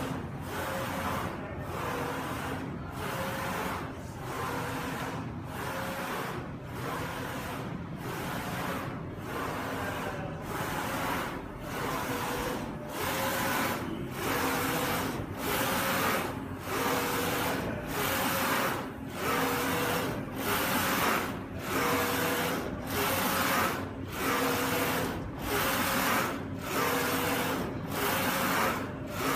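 UV flatbed printer printing on acrylic sheets: its print-head carriage shuttles back and forth with a steady mechanical whir and hum, broken by a short pause at each turn, about once every second and a quarter.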